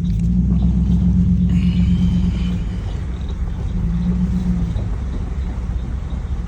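A motor vehicle driving slowly, its engine running with a steady low drone.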